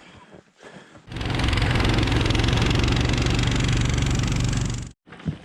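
Small engine of a motorized snow tug (motosobaka) running steadily with a fast even beat, starting up about a second in and cutting off suddenly near the end.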